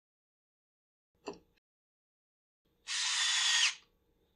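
A single knock about a second in, then a cordless power driver runs in one short burst of just under a second.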